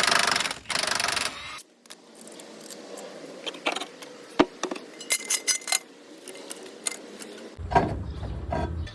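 Wheel removal on a mini skid steer: a loud burst of noise for about a second and a half, then a few seconds of scattered light metallic clinks and taps as the wheel hardware is handled. Louder low noise returns near the end.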